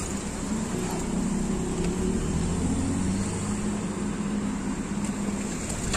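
Street traffic: a motor vehicle's engine running at low speed nearby, a steady low hum.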